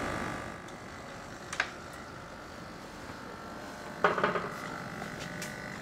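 Servo motors of a small robotic arm whining faintly as the arm extends, with a sharp click about one and a half seconds in and a short burst of buzzing about four seconds in.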